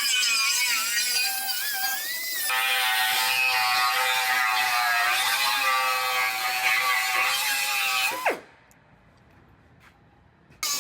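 Cut-off tool whining as it cuts through the steel frame rail, its pitch wavering as it loads up in the cut. About eight seconds in it is released and spins down with a quick falling whine, followed by a short lull.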